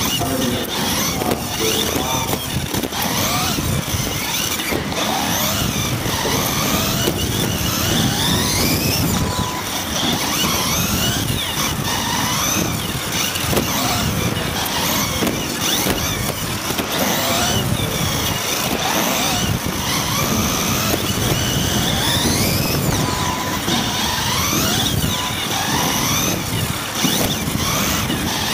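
Electric motors and gears of 1/10 off-road RC buggies, the onboard Team Associated B74.1 among them, whining and rising in pitch again and again as they accelerate along the track, over a steady hiss.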